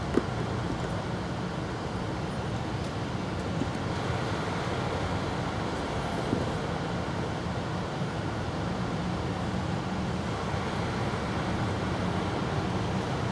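Steady low background rumble and hiss with no distinct events, like distant road traffic, and a single faint click just after the start.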